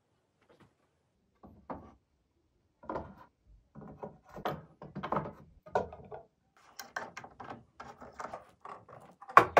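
Glued pine beams knocking and scraping against each other as they are pushed together on a workbench, with metal pipe clamps being handled and set across them; a sharp knock near the end.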